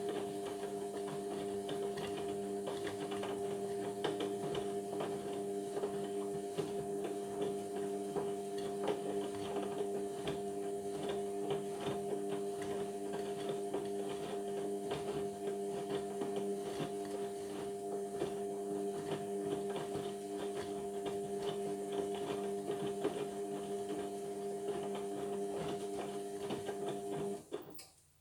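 Indesit washing machine's motor running and turning the drum at a steady speed: a steady hum with several fixed tones and fine clicking. It cuts off abruptly near the end.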